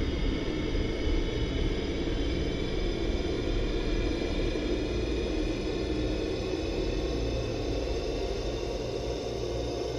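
A steady, low rumbling ambient drone with a faint hiss above it, with no distinct events.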